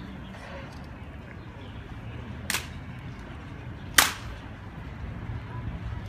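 Two sharp clacks from an honour guard's rifle drill on stone paving, about a second and a half apart, the second one louder, over a low outdoor murmur.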